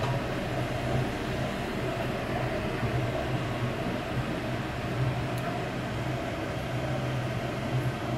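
Kitchen exhaust fan running over the gas stove: a steady low hum with an even rushing whoosh.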